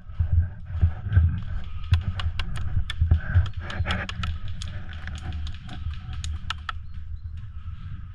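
Low, uneven rumbling thuds on the microphone, with a scattered run of sharp clicks and snaps from about two to seven seconds in.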